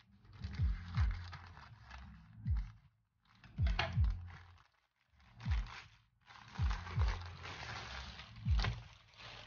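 Plastic poly mailer crinkling and rustling as it is cut with scissors and pulled open, in several bursts. Under it runs background music with a slow, deep beat, which is the loudest thing.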